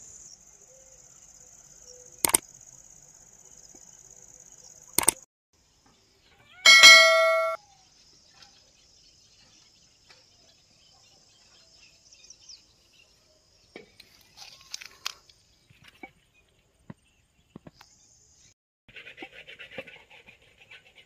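Steady high-pitched insect buzz broken by two sharp clicks, then a loud, brief ringing ding about seven seconds in, followed by faint scattered ticks.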